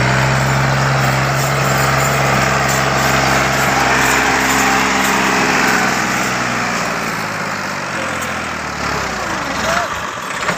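Massey Ferguson tractor's diesel engine running with a steady low hum. About seven seconds in the steady tone fades and the sound turns rougher and a little quieter.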